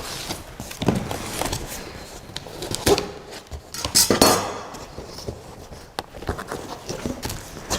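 A 3D printer's shipping box and packing being opened and handled: scattered knocks and clicks with scraping, and a longer rasping scrape about four seconds in.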